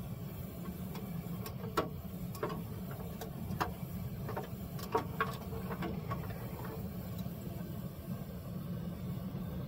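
Steel wolf traps clinking and knocking against each other and the barrel as they are hooked out of boiling water, about a dozen sharp metallic clinks over the first seven seconds. A steady low rumble runs underneath.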